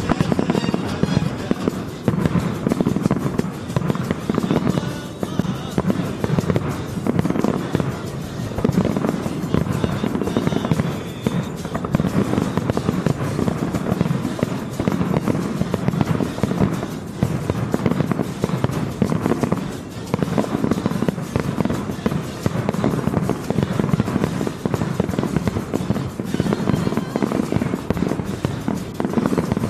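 Fireworks display: a dense, continuous barrage of shell bursts and crackling, with music playing underneath.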